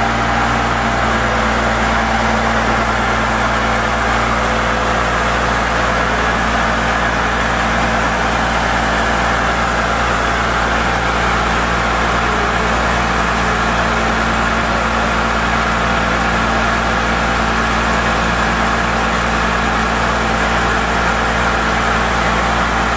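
Truck-mounted core drilling rig's engine and hydraulics running steadily at a constant speed, an even, unchanging machine hum.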